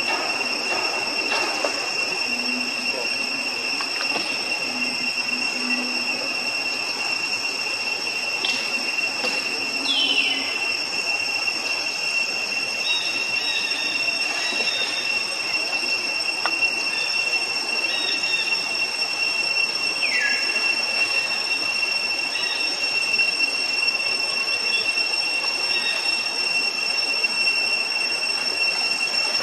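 Steady, high-pitched drone of forest insects, unbroken and even. A short falling whistled call comes about every ten seconds over it.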